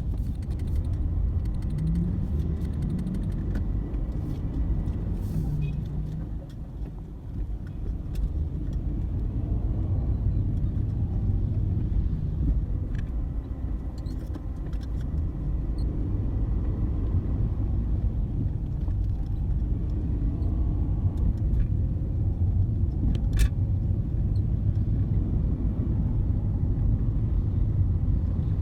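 Steady low rumble of motor vehicles on the road, with a few faint clicks and a slight dip in level a few seconds in.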